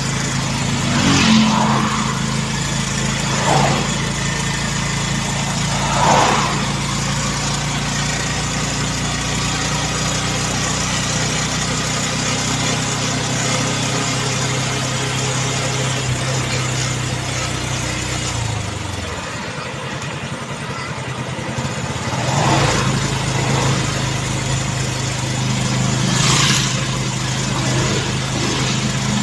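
Motorcycle engine running steadily at road speed, with wind and road noise. About two-thirds through, the engine note falls away as the throttle is eased and comes back a few seconds later, and a few brief rushes of louder noise come and go.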